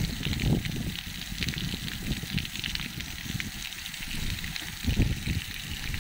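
Pressurised water hissing and crackling as it sprays up in a jet from a field standpipe valve, with wind rumbling unevenly on the microphone.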